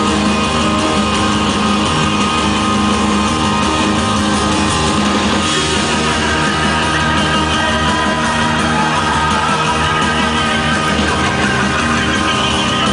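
Loud live electronic music through a venue's PA system, a dense, unbroken wall of synthesized sound, with a voice singing into a handheld microphone.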